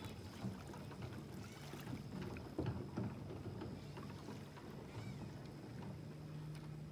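Kayak paddle dipping into calm water, a few soft splashes and knocks, with a faint steady low hum behind.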